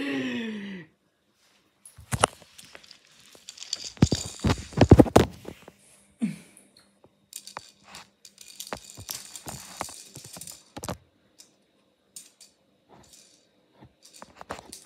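A small plastic toy car clattering and rolling across a hard tiled floor as a kitten bats at it: irregular clicks and knocks, loudest and densest about four seconds in, then a spell of rattling scrape around eight to eleven seconds in. A short cry falling in pitch opens the clip.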